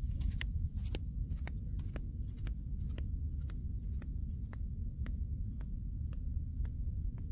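Footsteps on dry, crusted sand, about two a second, growing fainter as the walker moves away, over a steady low rumble of wind on the microphone.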